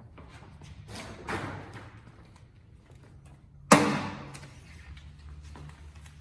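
Handling noise at a tool cart: a brief rustle about a second in, then one sharp knock with a short ringing tail a little past halfway.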